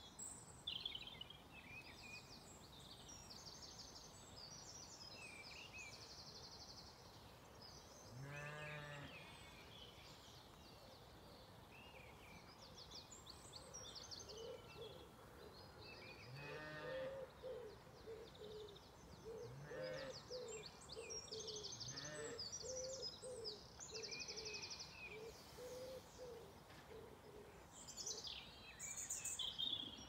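Songbirds singing, with a steady string of short phrases. Sheep bleat low four times: a longer bleat about a third of the way in, then three shorter ones in the second half. A low call repeats over and over through the second half.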